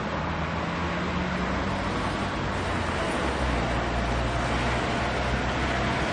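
Steady road traffic: a continuous wash of tyre and engine noise with a low engine hum underneath, rising slightly in level about three seconds in.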